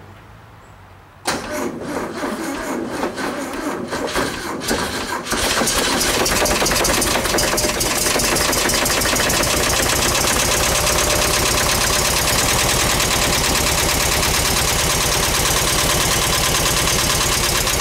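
Air-cooled Volkswagen flat-four engine, out of the vehicle on a bench, cranked for about four seconds before it catches, a little clunky, on fuel poured down the carburettor. From about five seconds in it runs steadily.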